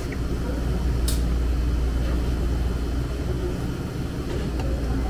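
Steady low hum of room background noise, with a single light click about a second in.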